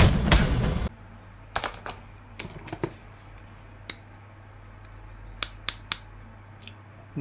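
Loud music with booms cuts off about a second in. Then come scattered sharp clicks and taps of plastic, a dozen or so at uneven intervals, as from handling an action figure and its packaging, over a low steady hum.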